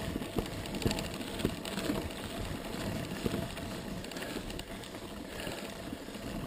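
Mountain bike rolling over a dirt trail: tyre noise on the dirt with the bike rattling and knocking over small bumps.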